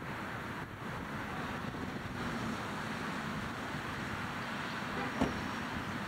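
Steady outdoor background noise of wind on the microphone and distant road traffic, with a short tap about five seconds in.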